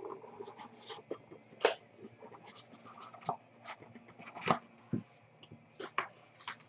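Hands handling and opening a small cardboard trading-card box: a scattered series of light taps, clicks and cardboard scrapes, with two sharper knocks, one about a third of the way in and one past the middle.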